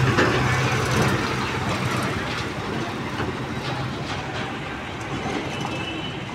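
Heavy diesel tractor-trailer passing close by, its engine humming while the long, loaded multi-axle flatbed trailer rattles and clanks over the road. The sound is loudest at first and fades as the rig moves away, the engine hum dropping out about two-thirds of the way through.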